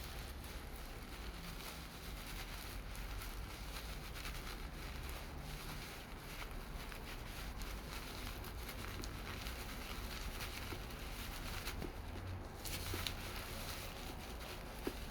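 Handling noises, faint taps and rustles, over a steady low hum, with a couple of sharper clicks near the end.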